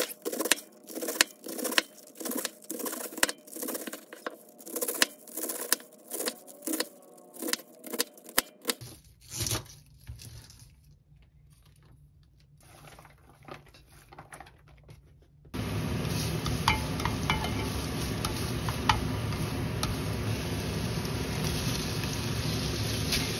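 A kitchen knife slices cabbage on a wooden cutting board, about two strokes a second, followed by a few quieter cuts. About fifteen seconds in, a steady frying sizzle takes over as smoked duck and cabbage cook in a pan, with a few light clicks in it.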